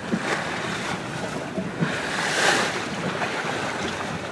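Water rushing and splashing along the hull of a MacGregor Venture 22 sailboat under sail, heeled over in a 10–15 knot breeze, with wind buffeting the microphone. A wave surges louder about two and a half seconds in.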